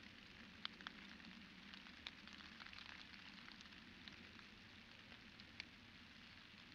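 Faint light rain: a soft, steady hiss with a few sharp drop ticks close by, the loudest a little under a second in.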